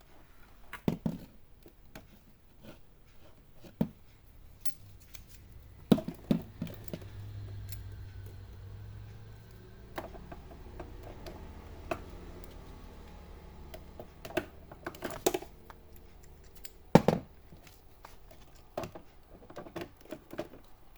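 Handling clicks and knocks of plastic and metal parts as the stand is fitted onto an HP all-in-one PC, with a few sharper knocks, the loudest about seventeen seconds in.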